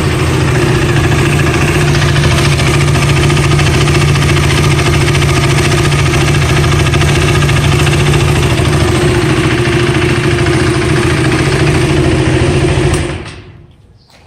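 KTM Duke 390's single-cylinder engine running steadily at idle, recorded close up so it sounds harsh, then switched off about 13 s in and dying away. The valvetrain ticking from a worn intake camshaft and rocker arm is mostly gone after both were replaced; the owner calls it 90% resolved.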